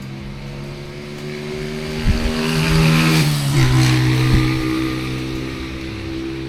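Motor vehicle engine running, its pitch shifting up and down in steps, growing louder in the middle and then easing off.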